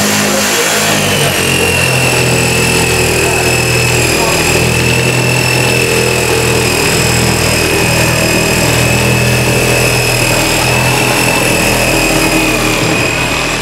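Hand-held electric power tool running steadily while pressed into a wall, a continuous motor whine with one high, steady tone.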